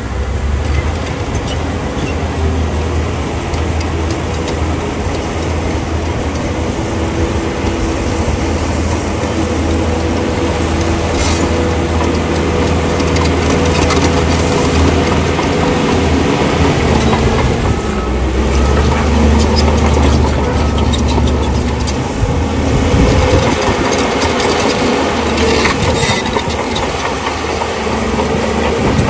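Bulldozer's diesel engine running under load with a steady low drone. Its steel tracks and blade clank and clatter, with a few sharper knocks along the way. The engine note shifts about two-thirds through.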